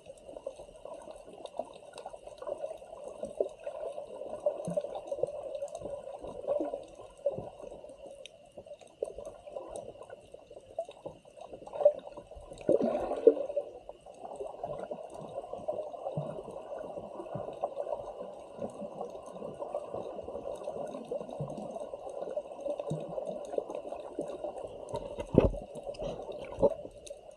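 Sea water sloshing and bubbling around a submerged camera: a steady muffled wash with scattered small crackles. There is a louder bubbly surge about twelve seconds in and a sharp knock near the end, with a faint steady high whine underneath.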